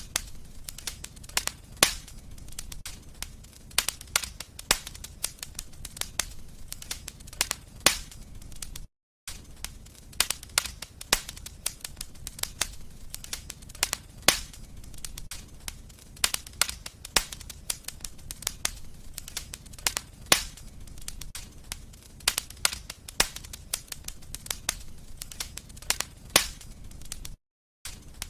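Fireplace fire crackling: a steady low rumble with dense, irregular sharp pops and snaps. Twice the sound cuts out completely for a fraction of a second.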